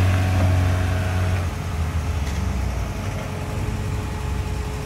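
Vehicle engine running with a steady low hum as a small hatchback is loaded onto a flatbed recovery truck. The hum is a little louder for the first second and a half, then settles.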